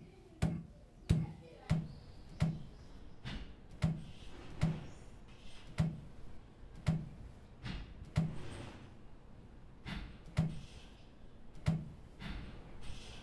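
Cotton binding ties being pulled off dyed kasuri (ikat) yarn one after another. Each tie gives a sharp snap, about one to two a second, and some are followed by a brief rustle of thread.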